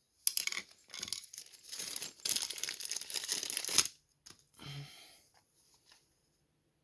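Rasping, rapid clicking of a hand tool tightening a Loctited bolt on a Yamaha Banshee's case saver, in dense bursts for about three and a half seconds, then one short fainter burst about a second later.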